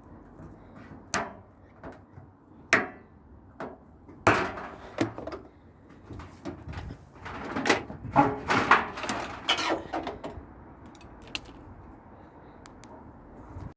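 Scattered knocks, clunks and rattles from a scrap tumble dryer being taken apart by hand, with a busier run of clatter and scraping in the middle.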